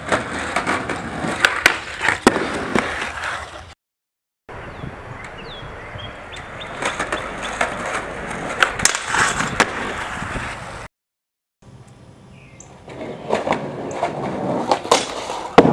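Skateboard tricks on a low flatbar: wheels rolling, with sharp clacks of the board popping, hitting the rail and landing. Three separate takes, each cut off abruptly by a brief silence, about four seconds in and again about eleven seconds in.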